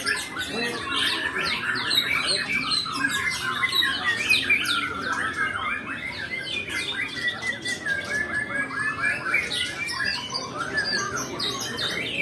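White-rumped shama (murai batu) singing a continuous song of rapid, varied chattering and sweeping notes, with no pauses.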